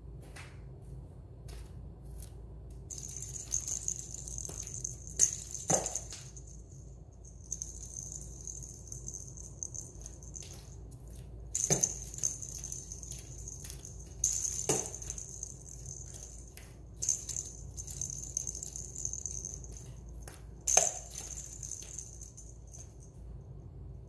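Small toy ball rattling in spurts as a parrot pushes and rolls it across a tile floor, with a few sharp knocks.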